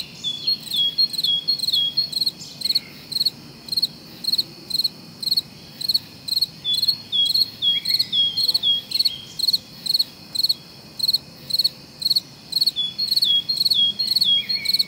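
Crickets chirping steadily, about two short trilled chirps a second, with a few short falling chirps mixed in at a slightly lower pitch.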